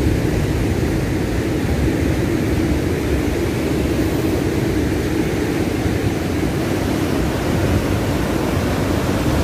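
Wind buffeting the microphone in a steady rumbling roar, over the sound of heavy surf on the shore.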